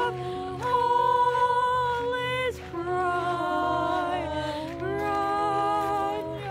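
Slow, gentle vocal music: voices singing long held notes in harmony, the notes changing every second or two over a soft, steady low pulse.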